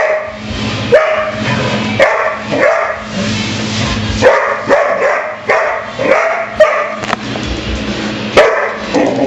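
German Shepherd-type dog barking in play at a push broom, a run of short, sharp barks about one a second.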